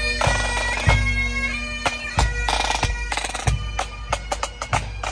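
Pipe and drum band playing: bagpipes sounding a melody over their steady drone, with a bass drum beating about once every second and a bit.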